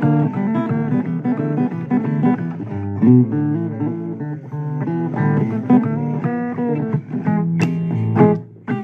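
Blues guitar playing an instrumental break between vocal lines, a busy run of picked notes over a bass line, with a sharp accent near the end.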